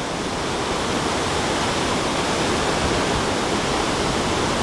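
Waterfall roaring steadily: the constant rush of water falling and crashing onto rocks, an even wash of noise with no breaks.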